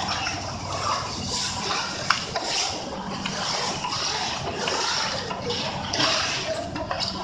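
Factory assembly-line noise around a two-head automatic screw-tightening machine: a steady low hum under a hiss that swells and fades in waves, with one sharp click about two seconds in.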